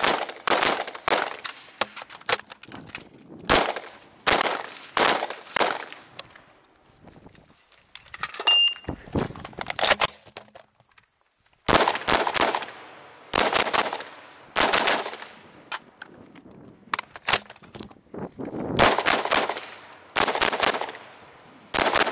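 Savage MSR Recon AR-15 rifle with a muzzle brake firing fast semi-automatic strings of shots, with short pauses between strings. A short electronic beep, like a shot timer's, sounds about eight and a half seconds in, just before the next string.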